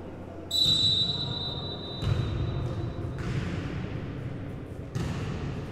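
A referee's whistle gives one short blast about half a second in, a single high tone that rings on and fades through the large hall over the next couple of seconds, over the low murmur of the sports hall.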